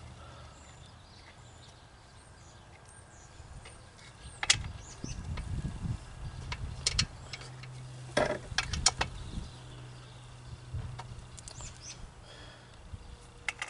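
Scattered sharp metal clicks and clinks of bolts and a ratchet wrench being handled while bolting parts to a lawn mower deck, with a steady low hum underneath. A cluster of clicks comes about eight to nine seconds in.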